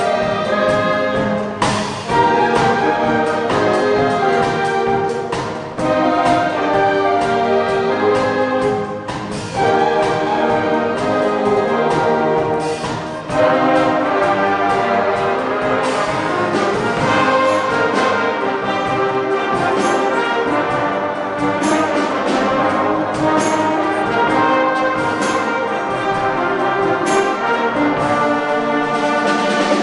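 Live orchestra playing, brass prominent over strings, in full sustained chords. In the first half the music falls back briefly and comes in loud again about every four seconds; after that it plays on steadily and full.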